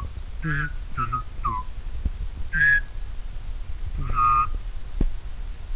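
A person making short high-pitched whistle-like squeaking noises with the voice, about five separate notes, some gliding down in pitch.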